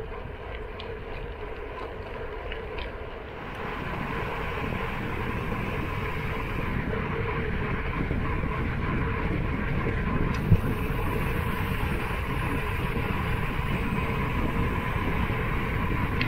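Wind rushing over a handlebar-mounted camera's microphone, mixed with the rolling noise of bicycle tyres on paved road, growing louder a few seconds in. One sharp knock stands out about ten seconds in.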